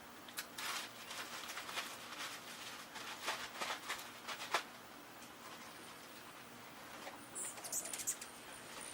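Small backyard birds, finches among them: a run of irregular scratchy rustling in the first half, then a few sharp high chirps and a thin, very high call near the end.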